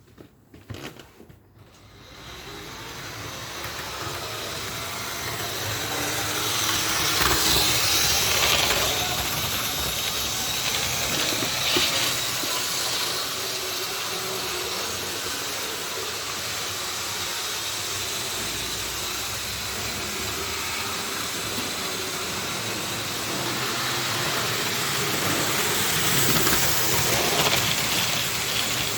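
Model trains running on a layout's track, a steady rushing rumble of wheels and motors that swells twice as a train passes close. A few light clicks come just before it starts.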